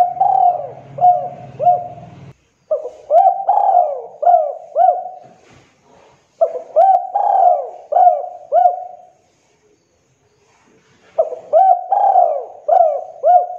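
Spotted dove (tekukur) cooing: four phrases of several rising-and-falling coos each, with short pauses between them and the longest pause before the last phrase near the end.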